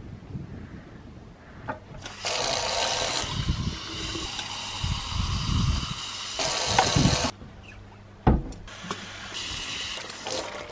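Water running in two spells that start and stop abruptly, like a tap being turned on and off, with a single dull thump between them.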